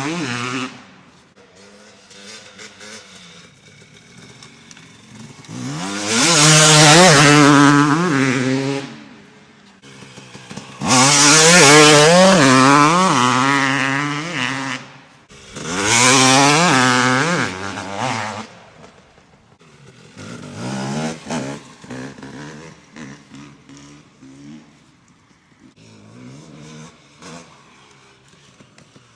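GasGas MC250 two-stroke motocross engine with an FMF Shorty pipe, ridden hard: three long loud bursts of acceleration, the pitch climbing and dropping back in steps as the bike shifts. Between them and toward the end it runs quieter with short throttle blips.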